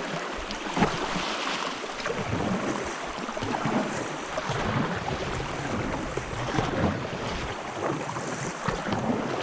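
River water rushing and splashing around a kayak, with wind gusting on the microphone.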